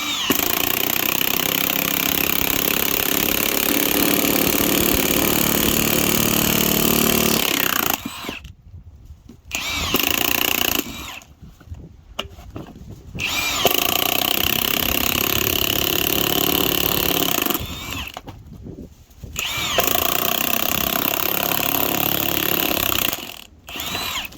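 Milwaukee M18 2767 high-torque impact wrench hammering as it drives a spiral screw log-splitter bit into a wet sycamore stump. It runs in bursts: a long one of about eight seconds, a short one, then two more runs of about four seconds, with brief pauses between.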